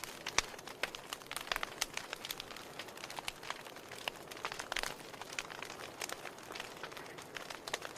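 Wood fire in a fireplace crackling, with frequent irregular sharp pops and snaps over a soft steady hiss.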